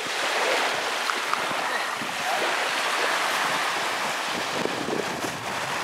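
Surf washing on the shore in a steady wash, with some wind on the microphone.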